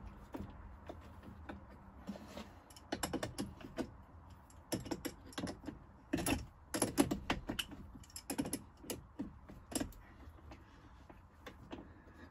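Irregular metallic clicks and clatter of hands working at a flooded lead-acid start battery's terminal hardware and cables, coming in short clusters.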